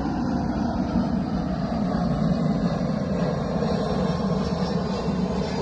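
Steady engine rumble of an aircraft passing overhead.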